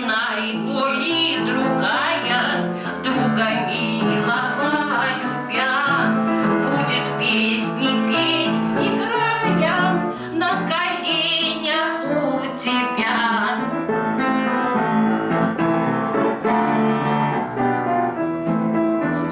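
Music: a song with piano accompaniment and a woman singing.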